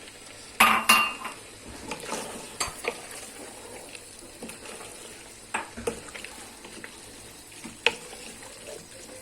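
A utensil stirring fish and seafood in a pressure-cooker pot, clattering against the pot several times, loudest about a second in, over a steady low sizzle of the sauce cooking.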